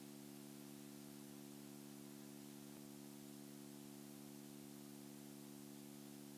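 Near silence: a faint steady electrical hum and hiss.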